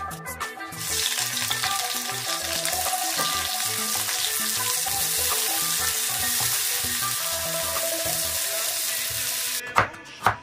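Sliced onions sizzling in hot vegetable oil in a wok as they are stirred, a steady hiss. Near the end the sizzle cuts off and a crinkle cutter chops through a carrot on a wooden board, a few sharp strikes.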